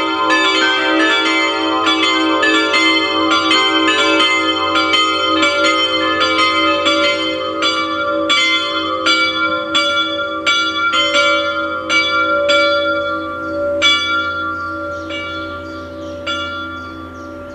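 Full peal of five Rincker church bells, tuned e'' g'' a'' c''' d''', swinging and striking in an overlapping pattern. The strikes grow sparser and stop about three-quarters of the way through as the peal ends, leaving the bells' ringing to die away.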